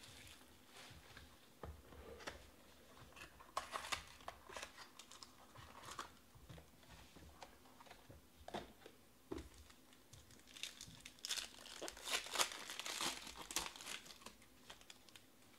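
Plastic shrink wrap being pulled off a sealed trading card box and crinkled, then a Panini Obsidian foil card pack being torn open. The crinkling comes in short irregular bursts, loudest and densest from about ten to fourteen seconds in.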